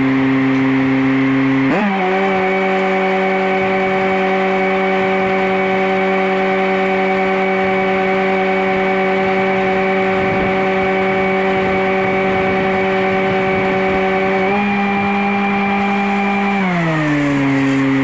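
Engine of an engine-driven stick welder rising from idle to full speed as the arc is struck, about two seconds in, running steadily under the welding load, then slowing back down to idle near the end as the weld pass stops.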